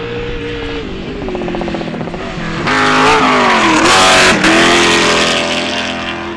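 Trophy truck race engine at full throttle: a truck passes close about three seconds in, much louder, with a rush of tyre and dirt noise and its engine pitch dipping and climbing again, then fades away.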